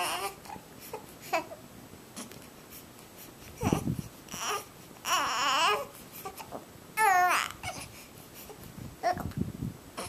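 A baby with the hiccups babbling and squealing in short bursts a second or two apart, with a wavering coo about five seconds in and a high squeal about seven seconds in.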